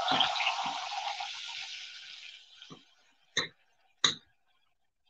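Black beans sizzling as they go into hot rendered bacon fat in a pan, the hiss dying down over the first two seconds or so. Then a few sharp taps as the beans are knocked out of their plastic container.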